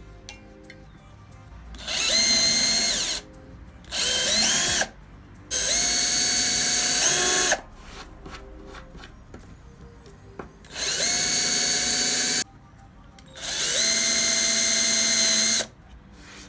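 RYOBI 18 V cordless drill drilling into a pine board in five short bursts. The motor whines and spins up at the start of each burst, with a short pause between bursts.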